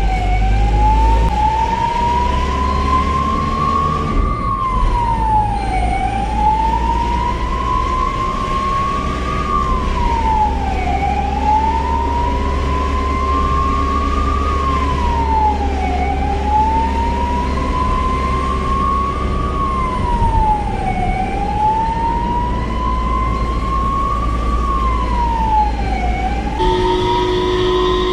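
Ambulance siren wailing, a slow rise and quicker fall in pitch repeating about every five seconds, over a steady low engine and road rumble.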